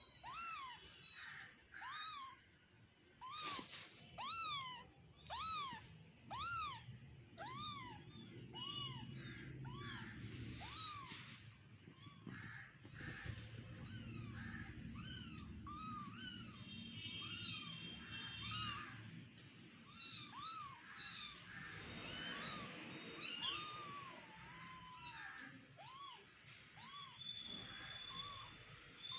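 A very young kitten mewing over and over: short, high, thin cries that rise and fall in pitch, about one a second, with a short lull partway through.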